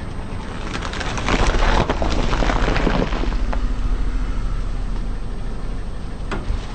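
Car tyre rolling over and crushing brittle objects: a run of crackling and snapping starting about a second in and lasting a couple of seconds, with one more snap near the end, over the steady low rumble of the car's engine and tyres.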